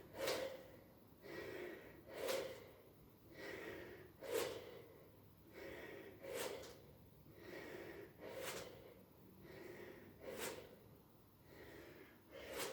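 A person breathing hard and rhythmically while exercising, a sharp forceful breath about every two seconds with softer breathing between.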